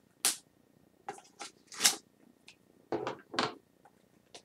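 A few short scrapes and crinkles of handling as a metal Pokémon card tin is opened, coming in scattered bunches.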